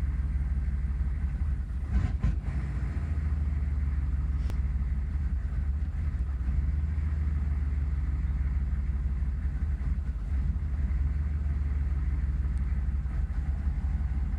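1996 Chevy 6.5 L turbo-diesel V8 idling roughly with no throttle applied, with a brief stutter about two seconds in.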